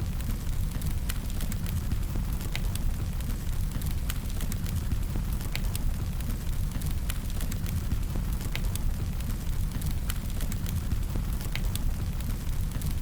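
Fire sound effect: a steady low rumble of burning flames with irregular sharp crackles and pops scattered throughout.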